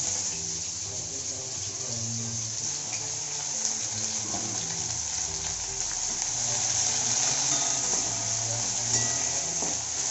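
Sliced onions frying in hot oil in a kadai, a steady sizzle.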